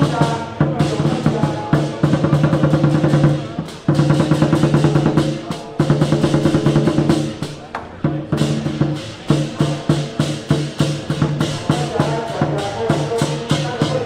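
Temple-procession percussion: drums beaten in fast rolls with clashing cymbals, breaking off briefly about four, six and eight seconds in.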